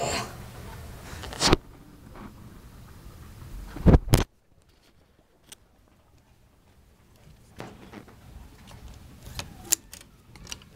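Handling clicks and knocks at a door, with a sharp knock about a second and a half in and a louder double knock about four seconds in. After that it is nearly silent for a few seconds, then faint rustling and light clicks.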